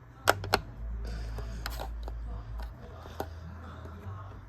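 Two sharp clicks in quick succession about a quarter second in, then a low rumble with a few more single clicks: small objects being handled close to the microphone.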